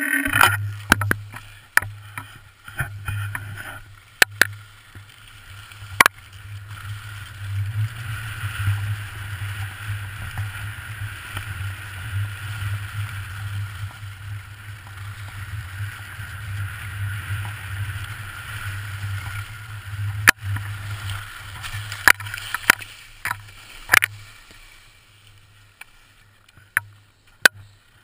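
Skis hissing and scraping over packed snow during a downhill run, with wind rumbling on the action camera's microphone and sharp clicks here and there. The rush dies away a few seconds before the end as the skier slows to a stop.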